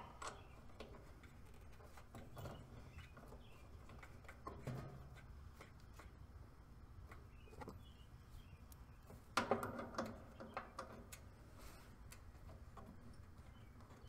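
Quiet handling of brass refrigerant fittings: scattered small metallic clicks and taps as valve core removal tools are screwed onto an air conditioner's service ports, with a short cluster of louder knocks and rustling about nine and a half seconds in. Faint bird chirps in the background.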